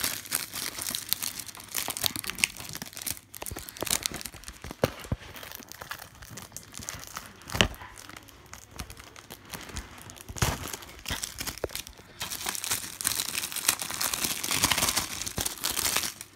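Clear plastic shrink-wrap being torn and peeled off a DVD case, crinkling and crackling steadily, with a couple of louder knocks from the case being handled about seven and a half and ten and a half seconds in.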